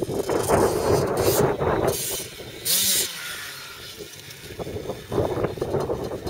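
Yamaha YZ85 two-stroke dirt bike engine running as the bike rides across grass. It drops off in the middle, with a brief rush of noise about three seconds in, then picks up again near the end.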